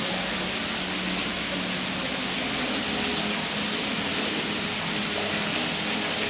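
Steady rushing hiss of water running in an ornamental rock stream, even and unbroken.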